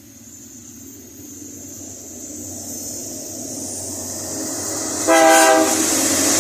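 Freight train hauled by three diesel locomotives (two GE C44EMi and a C30) approaching, its running noise growing steadily louder. About five seconds in the lead locomotive gives one short horn blast, then the loud running noise carries on.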